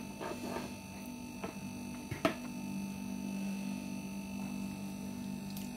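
A fork twirling noodles in a ceramic bowl, with a few faint taps and one sharper clink of the fork against the bowl about two seconds in, over a steady low electrical hum.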